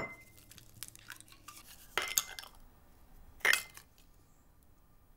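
Small glass jar clinking three times while an egg is separated by hand: the first two knocks ring briefly, the loudest comes about three and a half seconds in, with faint handling noise between.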